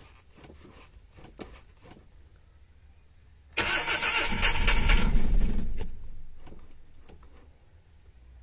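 Suzuki DA64 minivan's three-cylinder K6A engine cranked from cold about three and a half seconds in. It catches and runs roughly, then fades away and stalls within a few seconds. It is misfiring on only two cylinders because of a dead ignition coil.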